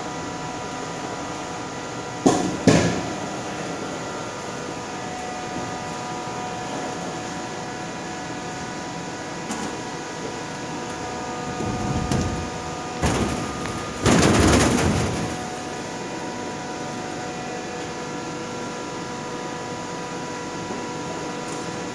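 Large blocks of ice being knocked and slid over the slatted metal floor of a refrigerated container: two sharp knocks about two seconds in, then scraping and thudding around twelve to fifteen seconds in, the loudest near the end of that stretch. A steady machine hum with several even tones runs underneath.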